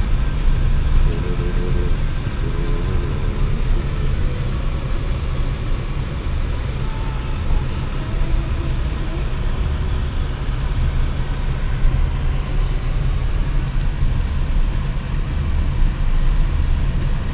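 Car driving, a steady low rumble, with faint voices about one to three seconds in.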